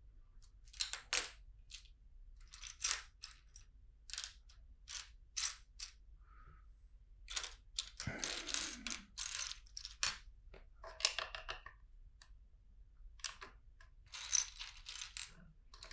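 Plastic LEGO bricks clicking and clattering as they are handled and pressed together, in short irregular bursts, with a longer rattle about eight seconds in.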